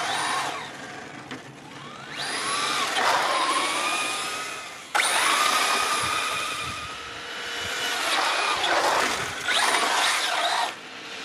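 Traxxas Slash 4x4 VXL RC truck's brushless electric motor whining as it speeds up and slows down, the whine rising and falling in pitch over a hiss of tyre and ground noise. The sound swells and fades several times and jumps abruptly about five seconds in.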